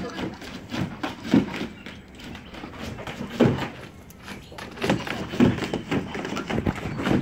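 Dogs barking now and then: a handful of short, separate barks spaced irregularly.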